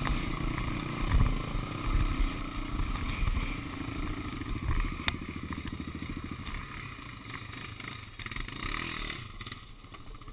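Honda 400EX quads' single-cylinder four-stroke engines running at low speed over rough trail, with knocks and clatter from the bumps. About five seconds in they drop to a quieter, steady idle as the quads stop.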